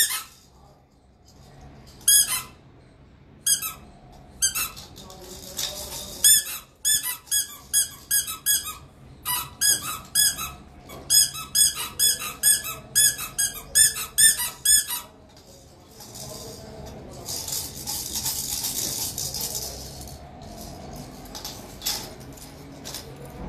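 Pink rubber squeeze toy squeaked over and over, a few spaced squeaks at first, then a quick run of about three high squeaks a second for several seconds. The squeaking stops about two-thirds of the way in, followed by a few seconds of shaking, rattling hiss.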